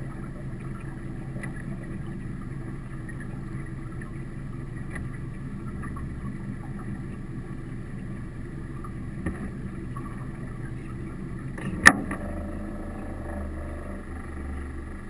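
Boat motor running steadily while trawling, a constant hum with held tones. A single sharp knock sounds once near the end.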